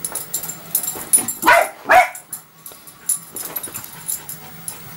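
Small terrier giving two short barks half a second apart, about a second and a half in, with scattered light clicks around them.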